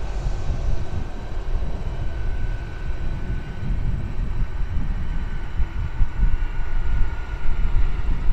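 Boeing 747-400 freighter's four turbofan engines running at low taxi power as the jet turns on the runway: a steady low rumble with a faint whine that drifts slightly lower in pitch.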